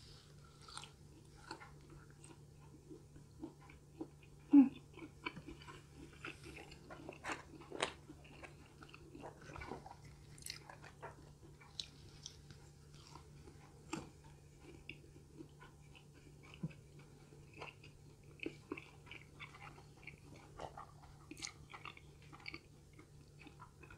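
Close-up chewing and crunching of breaded fried chicken bites, with scattered crisp crunches and one louder bite about four and a half seconds in. A faint steady low hum runs underneath.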